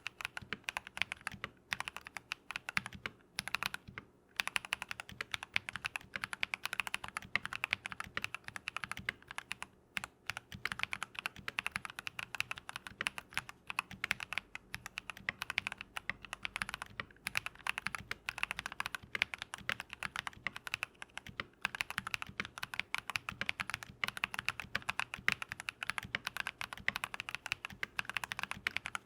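Fast continuous typing on a modded Keychron V1 mechanical keyboard with lubed Drop + Invyr Holy Panda tactile switches: rapid key clacks, with short pauses about four and ten seconds in.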